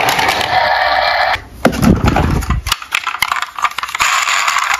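A steady electronic noise cuts off about a second and a half in, followed by a rumble and knocks as a plastic toy car rolls and crashes into toy snakes, then light clicks and rattles of plastic toy vehicles being handled.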